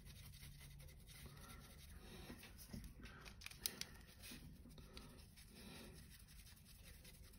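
Near silence, with faint light taps and rubbing from a paintbrush being rinsed and worked over a wet palette; a few brief clicks come around the middle.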